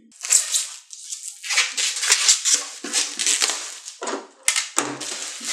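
Plastic shrink wrap being torn and crinkled off a cardboard board-game box, an irregular crackling rustle, with a couple of sharp clicks about four and a half seconds in.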